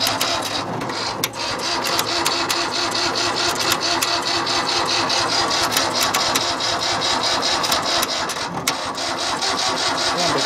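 Tractor engine being cranked by its electric starter without catching, a steady rhythmic churning of about three beats a second. It is a cold start after about a month unused, on an engine with ignition problems.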